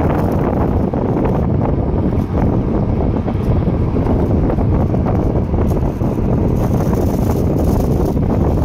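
Loud, steady wind buffeting the microphone from a moving vehicle, with low road and engine rumble underneath.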